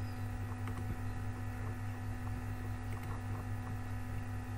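Steady electrical hum, mains hum with several steady tones, picked up on the recording, with a few faint ticks.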